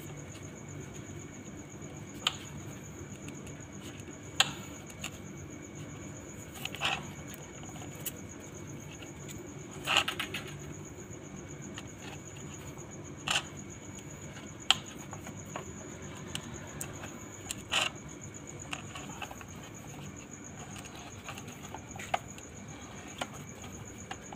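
Soft copper air-conditioner tubing being wound by hand around a plastic pipe to bend it into a coil. Short, light clicks and knocks of the copper against the pipe come every two to three seconds, over a steady high-pitched tone.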